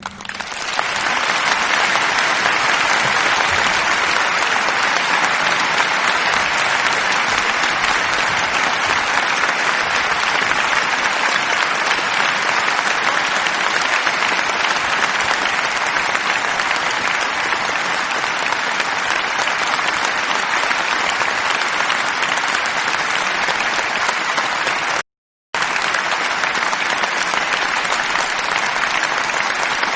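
Concert audience applauding: a dense, steady wash of many hands clapping that builds up over the first second. Near the end it cuts out completely for about half a second, then resumes.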